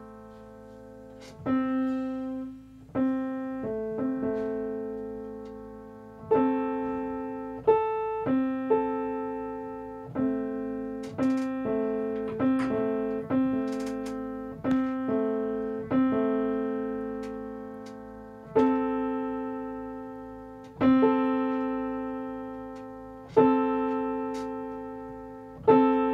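Grand piano being tuned: mid-range notes and test intervals struck again and again, roughly every one to two seconds, each left to ring and fade so the beat speeds can be compared. The tuner is checking the 6-3 match of the octave, which he then judges narrow.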